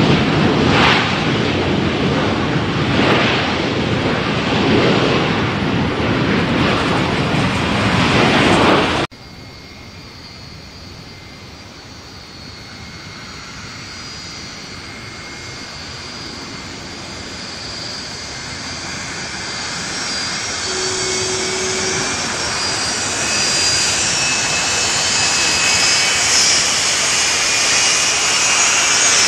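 Landing Boeing 757's jet engines roaring loud, cut off suddenly about nine seconds in. Then an approaching Airbus A321's jet engines, a whine with steady high tones growing gradually louder.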